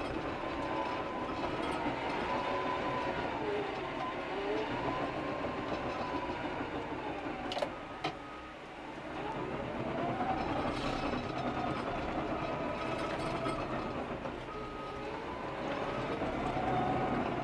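Cat crawler dozer running under load, heard from inside the cab: a steady diesel engine and drivetrain sound with a tone that rises and falls in pitch as the machine works. Two sharp clicks come about seven and a half seconds in, followed by a brief dip in the engine sound.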